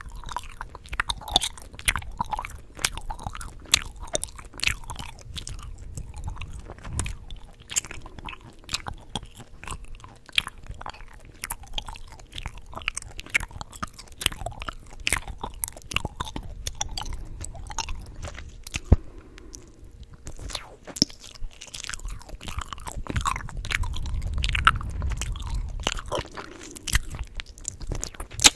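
Chewing gum close to the microphone: a continuous run of wet smacks and sharp clicks, several a second, with a brief lull about two-thirds through.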